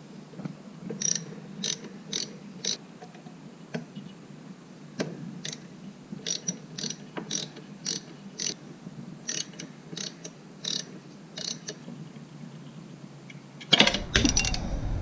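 Hand ratchet wrench clicking in short, irregular strokes while loosening tight bolts on a motorcycle frame. Near the end there is a louder burst of clattering handling noise.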